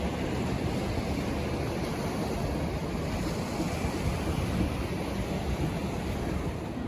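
Ocean surf breaking and washing on a beach: a steady, even wash of noise with no distinct events.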